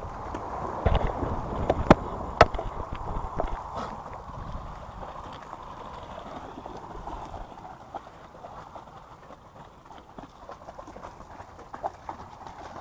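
A person's footsteps on a gravel road and then on concrete ramp slabs, with a few sharp knocks about two seconds in, over a faint steady noise.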